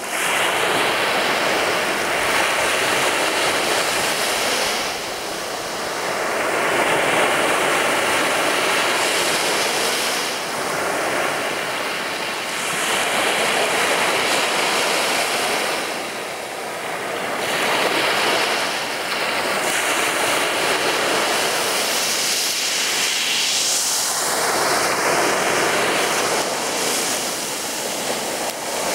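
Sea waves breaking and washing on a beach, each surge swelling and easing about every five to six seconds.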